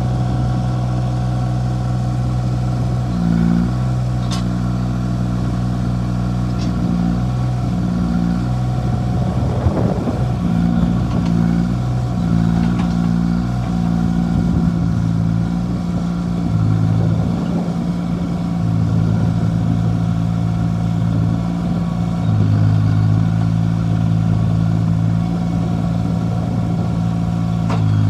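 Terramite T6D backhoe's engine running steadily, its note dropping and shifting every few seconds as the load changes, with a couple of sharp clicks and a brief clatter along the way.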